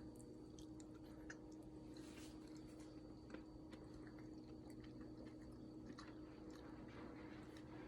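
Faint eating sounds: small wet mouth clicks and smacks as someone tastes a homemade queso and ranch sauce. A low steady hum runs underneath.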